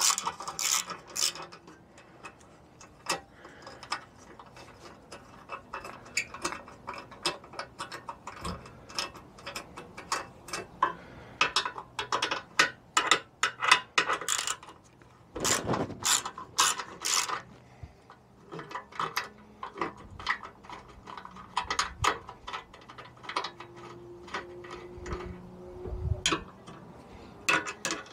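Ratcheting hand screwdriver clicking in irregular bursts as screws are backed out of a rusty steel bracket on a scooter's fuel tank.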